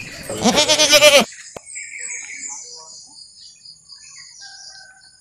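Goat kid bleating once, a quavering cry under a second long near the start. Faint bird chirps follow.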